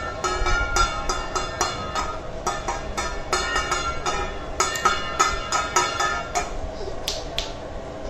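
Background music: a plucked-string melody of quick, evenly spaced notes that stops about six seconds in. Two short high clinks follow near the end.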